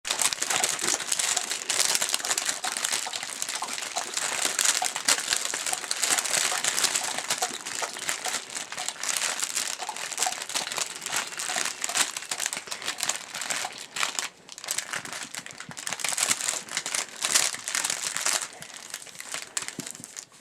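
Crinkly fabric cat-fish toy crackling and rustling continuously as puppies walk on it and chew it.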